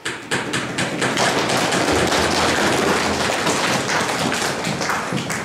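Audience applauding: many hands clapping at once, starting suddenly and then holding steady.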